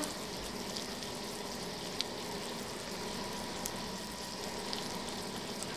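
Meat frying in a pan: a steady, quiet sizzle with a small pop about two seconds in.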